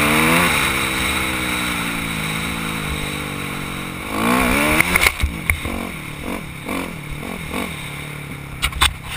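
Yamaha dirt bike engine revving up, holding and easing off, then revving again about four seconds in. After that comes a run of short throttle blips, with sharp knocks and clatter as the bike crosses rough, muddy ground.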